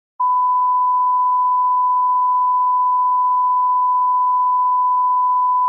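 Loud, steady 1 kHz test tone, the beep that goes with TV colour bars, beginning a moment in and holding one unchanging pitch.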